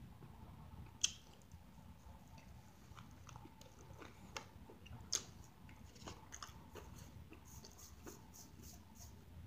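Close mouth sounds of a person chewing a bacon, egg and cheese biscuit sandwich: faint wet clicks and smacks, with a sharper click about a second in and another about five seconds in.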